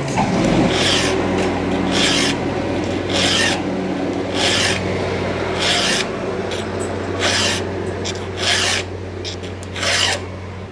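Hand file rasping across a cutter tooth of a STIHL MS462 chainsaw's saw chain, in about eight slow, even strokes a little over a second apart. The file is cutting back rock-damaged, dulled metal until the tooth edge is clean and shiny, and a burr is starting to form on the tooth.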